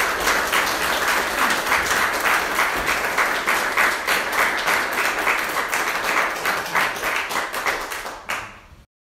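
Audience applauding, a dense run of clapping that fades away and cuts off near the end.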